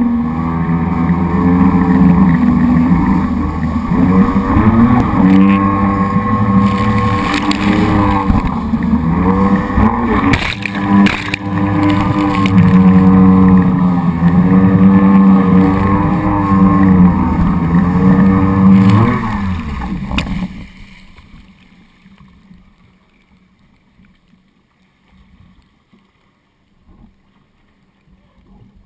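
Jet ski engine running under throttle, its pitch rising and falling as it speeds over waves, with water splashing against the hull. About two-thirds of the way through the engine stops suddenly, leaving only faint splashes of water.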